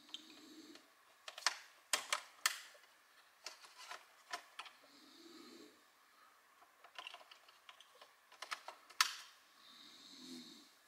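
Ink cartridges being handled and pressed into the print-head carriage of a Canon Pixma TR150 portable printer: a series of sharp plastic clicks and snaps as they are seated, with softer handling noise between.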